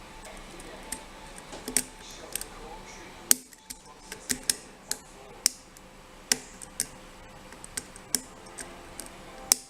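Lock pick working the pins of a rim night latch's pin-tumbler cylinder: a string of sharp, irregular metallic clicks and light scrapes as the pins are set under tension from a pry bar.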